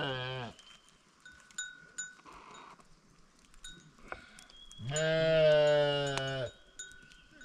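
Sheep bleating: one bleat ends about half a second in, then a second, longer bleat of nearly two seconds starts just before five seconds in.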